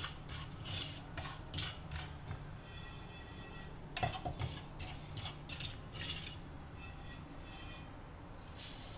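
Wooden spatula stirring and scraping dry cumin seeds around a hot nonstick frying pan in repeated rasping strokes. The seeds are being toasted just enough to drive off their moisture. Later the seeds are scraped out of the tipped pan.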